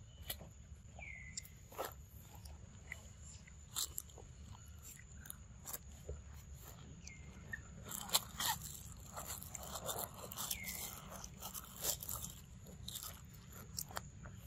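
Macaque chewing papaya close to the microphone: scattered wet clicks and smacks of its mouth.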